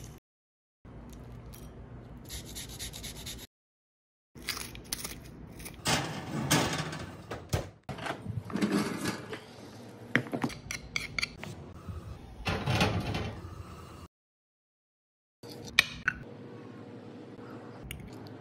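Kitchen handling sounds in several short clips separated by brief silences: irregular scraping, rubbing and clinking of metal utensils against cookware and dishes, with a few sharp taps.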